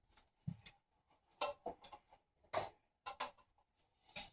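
A plate and kitchen utensils being handled: an irregular scatter of light clicks and knocks, the sharpest about two and a half seconds in.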